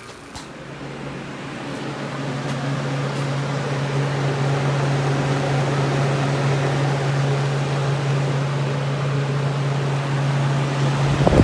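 Refrigeration vacuum pump running steadily while evacuating the newly piped system, a low steady hum that grows louder over the first few seconds and then holds.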